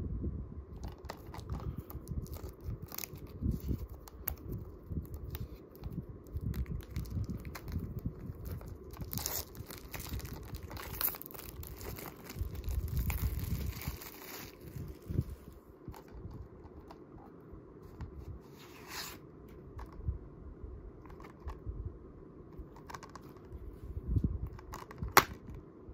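Clear plastic shrink-wrap being peeled and torn off a Blu-ray case, crinkling loudest for a few seconds in the middle, with hands handling the plastic case throughout. Near the end comes a sharp click as the case is snapped open.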